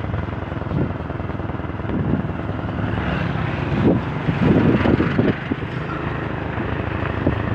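A small motorcycle's engine running while the bike is ridden, mixed with road and wind noise. It gets louder and rougher for a stretch about four seconds in, as the bike comes onto a dirt road.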